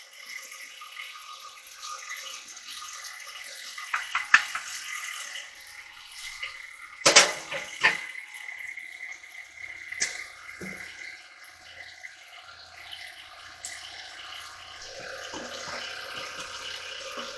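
Electric stand mixer running, its beater working a sticky bread dough in a stainless steel bowl. A few sharp knocks and clatters come through, the loudest about seven seconds in.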